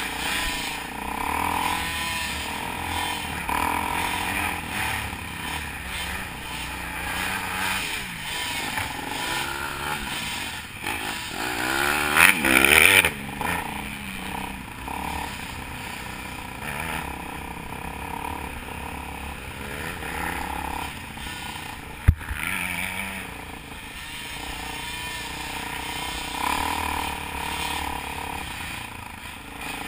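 Dirt bike engines running on a trail, the engine pitch rising and falling as the throttle is worked, with a loud rising rev about twelve seconds in. A single sharp knock a little past halfway.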